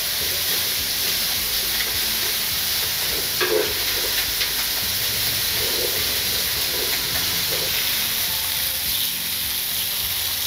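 Zucchini and onion sizzling in a hot pot while they are stirred with a spatula, a steady frying hiss with a few short scraping sounds.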